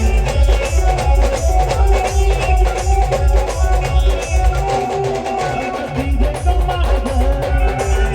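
Loud band music with a heavy, regular drum beat under a melodic instrumental line. The low drum beat thins out briefly about two-thirds of the way through, then comes back in.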